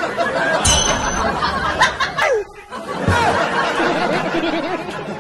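Several voices chattering and laughing over each other, with a sharp knock about a second in and a dull thump about three seconds in.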